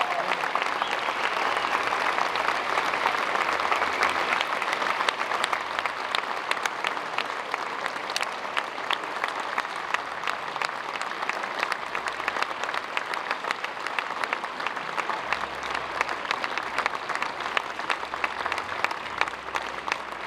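A large crowd applauding in a standing ovation: a dense, sustained clapping that eases off slightly over time, with single claps standing out more toward the end.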